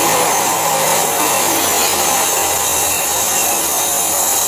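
Steady, loud rushing noise of metalworking shop equipment running without a break, with faint steady high-pitched tones over it.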